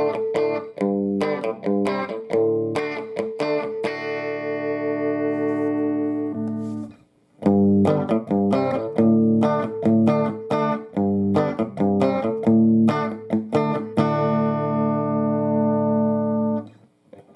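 Electric guitar played through a Fender all-tube combo amp: two phrases of picked notes, each ending on a chord left to ring out. There is a brief stop about seven seconds in.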